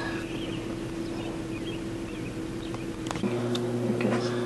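Steady background hum with a few faint short chirps. About three seconds in it changes abruptly to a different, deeper steady hum with a few light clicks.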